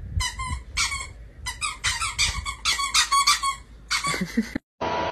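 Dog chewing a squeaky toy: a string of short, sharp squeaks, spaced out at first, then coming fast and close together, stopping abruptly near the end.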